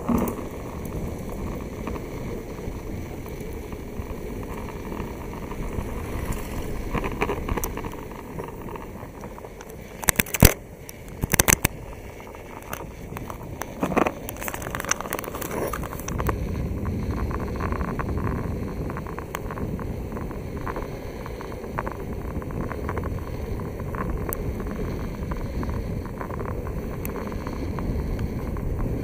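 Electric skateboard being ridden outdoors: a steady rolling rumble from the wheels on pavement, with wind on the microphone. A few sharp clacks come a little past ten seconds in.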